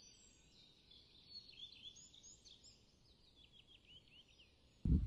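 Small birds chirping, a quick flurry of short, high, downward-sweeping notes from more than one bird. Near the end a sudden loud low rumble cuts in.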